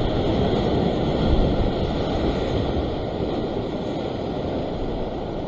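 Ocean surf breaking and washing over a rock ledge: a steady rushing that swells about a second in and then slowly eases.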